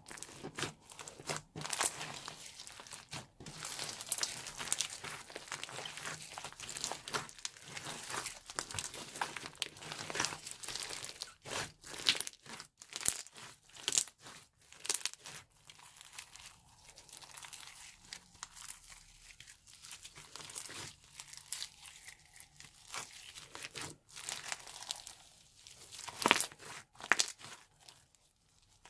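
Sticky slime mixed with foam bricks and play-dough being squished and stretched, giving dense, irregular crackling and crunching with many small sticky pops. It eases off for a stretch in the middle and has a louder cluster of crackles near the end.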